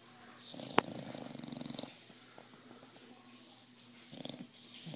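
Bulldog snoring: a rattling snore lasting over a second, with a single sharp click near its start. A shorter snore follows about four seconds in, and another begins at the end.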